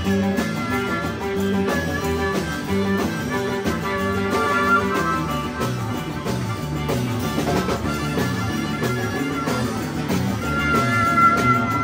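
A rock band playing an instrumental break of guitar over bass and drums, with a stepping bass line. A high guitar note is held near the end.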